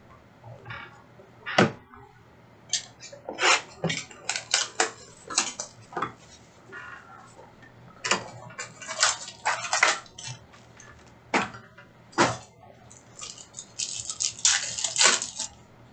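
Trading-card packs being opened and cards handled: irregular crinkles, clicks and rustles of pack wrappers and cards. Denser runs of crinkling come about eight to ten seconds in and again around fourteen to fifteen seconds.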